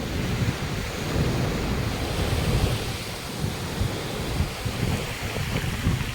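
Wind buffeting the microphone in uneven gusts over a steady wash of ocean surf.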